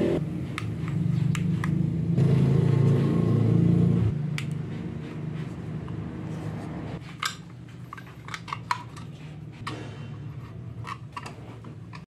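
A vehicle engine running steadily, dropping away sharply about four seconds in. After that come light plastic clicks and scrapes as rubber grommets are pushed into a plastic muffler tip cover.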